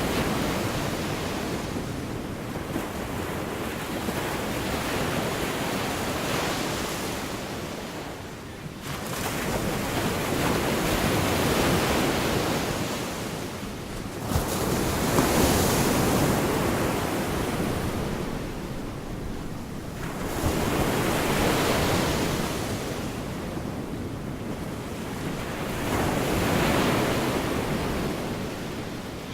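Gulf of Mexico surf: waves breaking and washing in, swelling and falling about every five to six seconds.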